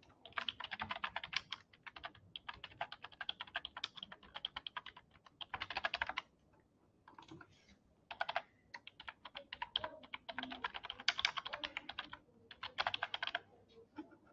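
Typing on a computer keyboard: quick runs of keystrokes with a brief pause about six seconds in.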